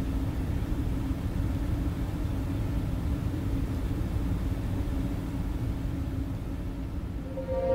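A steady low rumble with a faint hum, easing slightly near the end: the aftermath of a car crash heard from behind the shattered windshield.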